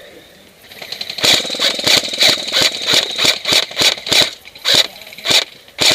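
Echo 1 M14 SOCOM electric airsoft rifle firing a rapid string of about fifteen shots, roughly three a second, each one a sharp gearbox clack and motor whir, starting about a second in.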